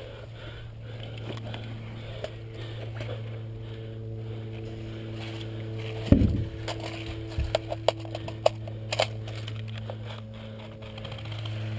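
A steady low hum, then a heavy thump about six seconds in, followed by a string of scattered sharp cracks from airsoft guns firing.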